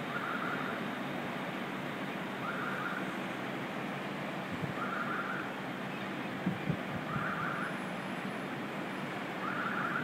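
Steady outdoor background rush with a short high chirp repeating evenly about every two and a half seconds, like a distant electronic beeper. A couple of soft low knocks come a little past halfway.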